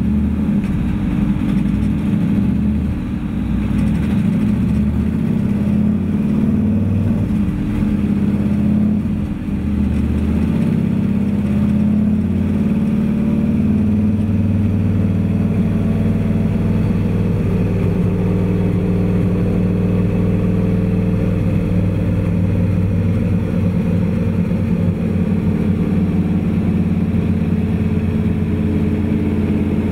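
Turbocharged 2006 Harley-Davidson V-Rod (VRSCSE2) liquid-cooled V-twin running on a chassis dyno: uneven throttle blips for the first dozen seconds, then running steadily at one engine speed.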